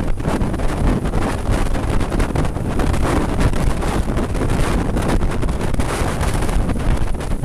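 Heavy wind buffeting on the microphone of a riding Suzuki B-King motorcycle's on-board camera, steady and loud, with the motorcycle's engine and road noise underneath.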